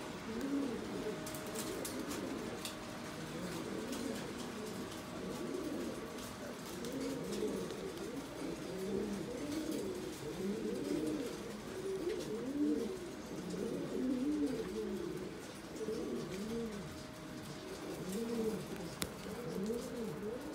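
Buchón Gaditano pouter pigeons cooing: a steady, continuous run of repeated rising-and-falling coos.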